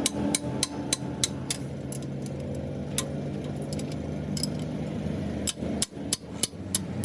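Hammer striking metal: a series of sharp knocks, about three a second at first, then scattered strikes after a pause, over a steady low hum.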